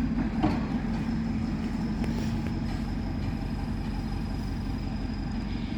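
A motor vehicle running steadily, with an even low engine hum and road noise.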